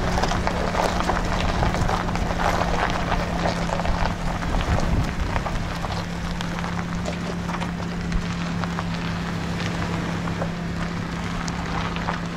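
Van driving slowly over a gravel dirt road: tyres crunching and popping over loose stones, with a steady low engine hum underneath and some wind noise.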